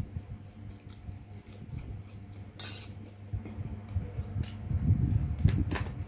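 Scattered clinks and taps of plates and cutlery, with a short scraping noise about two and a half seconds in and a run of low bumps near the end.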